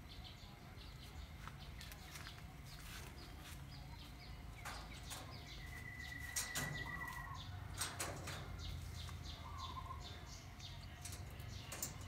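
Caged common hill myna moving about its wire cage: a scatter of sharp clicks and flaps. A steady whistle is held for about a second and a half just past the middle.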